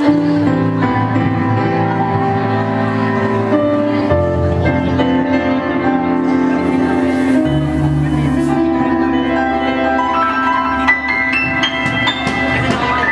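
Instrumental introduction of a backing track played over loudspeakers: sustained keyboard chords over a bass line, changing every few seconds, with a run of rising higher notes near the end.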